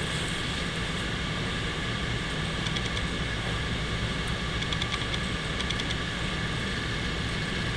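A steady mechanical hum, even in level, with a few faint light clicks near the middle.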